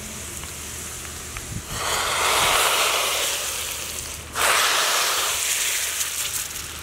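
Hot tempering oil with dried red chillies and spices (tadka) hitting sambar dal in a clay pot and sizzling loudly. The sizzle starts about two seconds in, breaks off for a moment a little after four seconds as more is poured, surges again and fades away.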